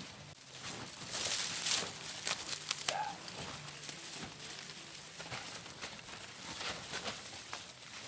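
Dry corn stalks, leaves and husks rustling and crackling as ears of corn are picked by hand, with a few short sharp cracks. The rustle is loudest a second or two in.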